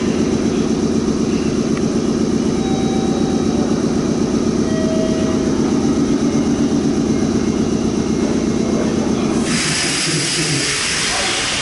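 Meitetsu 6500 series electric train standing at an underground platform: a loud steady mechanical drone with a fast, even pulsing. About nine and a half seconds in the drone stops and a loud hiss takes over.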